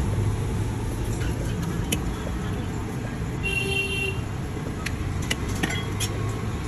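Street-stall ambience: a steady traffic rumble with a brief vehicle horn toot about three and a half seconds in, and a few sharp clinks of a steel spatula and plates against the poha pan.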